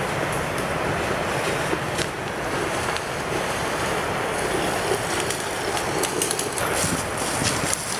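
Steady rushing outdoor noise, with a few faint snaps about two seconds in and again near the end.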